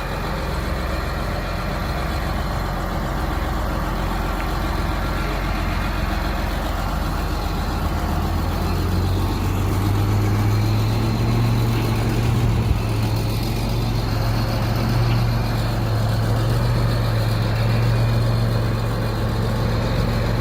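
Tractor diesel engine running while pulling a grain cart, its hum stepping up and getting louder about halfway through as the engine speeds up or comes closer. A single brief knock a little after that.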